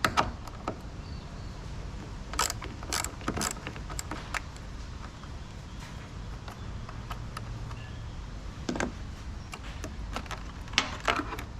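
Hand tools working on the car's battery terminal: a few sharp metallic clicks and knocks, three in quick succession, then one more, then a small cluster near the end, as the battery is disconnected.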